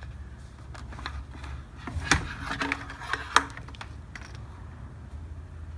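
Plastic clicks and knocks of a C7 Corvette Stingray's rubber-and-plastic air intake tubes being pulled loose from the throttle body and lifted out, with two sharper knocks about two and three and a half seconds in, over a low steady hum.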